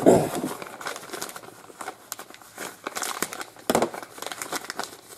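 Plastic crinkling and rustling, with scattered small clicks and knocks as parts are handled; loudest at the very start, with another burst of clicks near the end.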